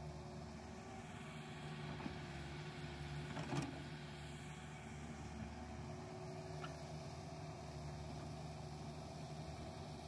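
Mini excavator's diesel engine running steadily, with a single sharp clank about three and a half seconds in.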